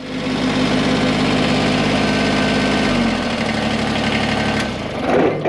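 Engine running steadily; its pitch drops a little about three seconds in.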